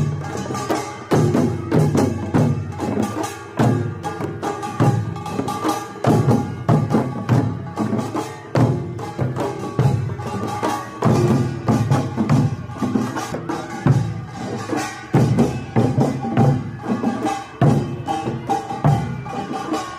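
Korean pungmul percussion band playing in a street parade: janggu hourglass drums and buk drums beaten in a dense, driving rhythm, with some ringing tones over the drumming.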